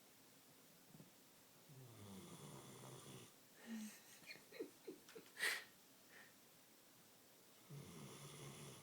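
Quiet snoring from a sleeping dog: one drawn-out snore about two seconds in and another near the end. In between come a few short squeaks and clicks and one brief sharp snuffle.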